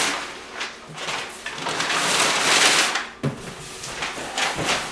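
Cardboard and packing material rustling and scraping as they are handled inside a shipping box, loudest in the middle, followed by a sharp knock and a few lighter knocks near the end.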